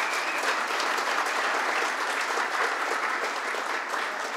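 Audience applauding, a dense, steady clapping with no letup.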